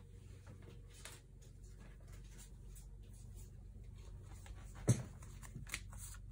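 Quiet room tone with a steady low hum, a few faint taps and one sharper click about five seconds in.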